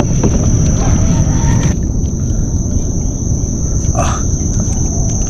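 Insects trilling in one steady high tone over a loud low rumble, with a brief sound about four seconds in.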